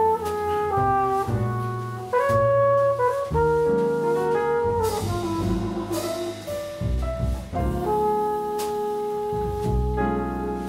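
Jazz quartet playing live: a flugelhorn carries the melody in held notes over piano and double bass.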